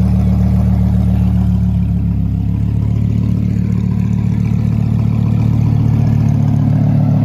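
Lamborghini Huracán's naturally aspirated V10 engine running steadily at idle or low revs, a deep even hum with no revving.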